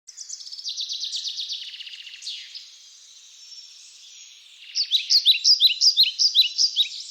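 Small birds chirping: fast, high trills at first, then from about five seconds in a louder run of quick, repeated down-slurred chirps.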